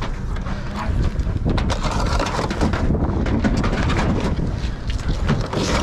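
Wind buffeting the microphone, with scattered knocks and rattles of housewares being shifted by hand from one pallet box to another.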